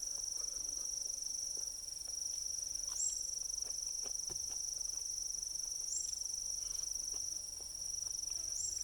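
Insects droning steadily at a high pitch, with a short upward chirp about every three seconds. Faint scattered clicks underneath.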